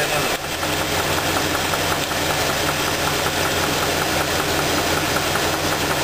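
V8 engine idling with a steady, regular knock from the bottom end: a bad (spun) connecting-rod bearing, traced to the number 2 cylinder.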